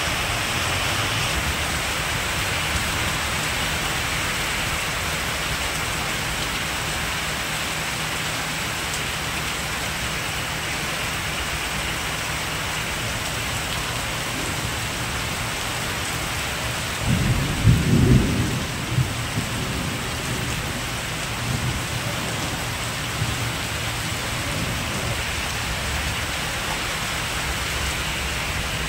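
Heavy rain pouring steadily onto a street and the roofs and shutters around it. A brief low rumble stands out about two-thirds of the way through.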